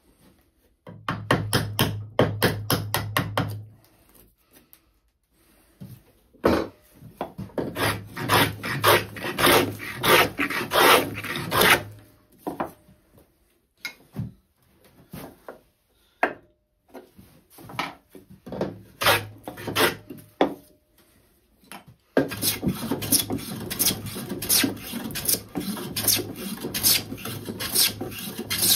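Hand plane cutting along the edge of a spruce board in quick, short strokes, coming in several runs with pauses between them.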